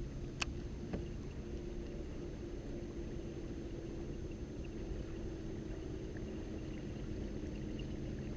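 Steady low hum and water noise around a kayak sitting on the water, with two light clicks about half a second and a second in.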